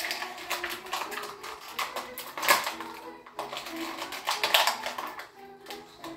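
Plastic wrapping crinkling and crackling in the hands as a small toy figure is unwrapped, in quick irregular crackles.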